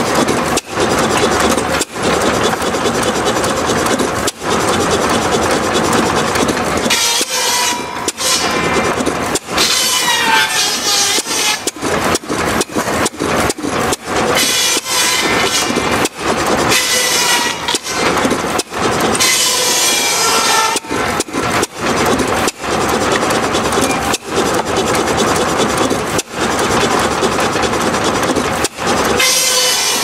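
Belt-driven antique circular saw ripping slabs of wood, its blade whining with a pitch that sags under load in several cuts lasting one to two seconds each, over the continuous running noise of the saw rig and its drive.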